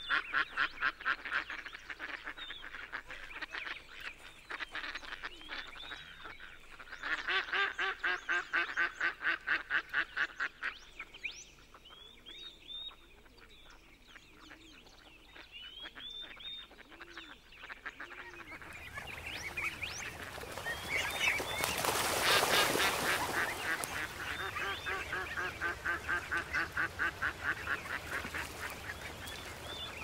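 Ducks quacking in rapid runs of about four or five calls a second, with short higher calls in the gaps. About two-thirds of the way through, a rushing noise rises under the calls, peaks and eases off as the quacking resumes.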